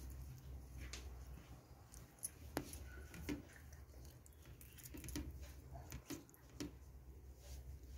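Faint wet squishing and scattered small clicks of a hand mixing thick masala marinade in a plate, over a low steady hum.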